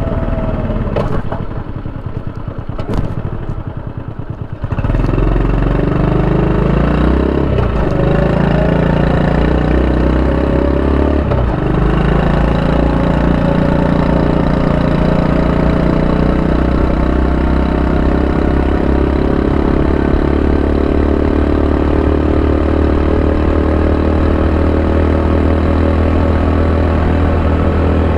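Honda Super Cub 90's small single-cylinder four-stroke engine idling with a quick ticking beat for a few seconds. About five seconds in it revs up as the bike pulls away. The pitch drops briefly twice as it shifts up, then the engine runs steadily at a cruising speed.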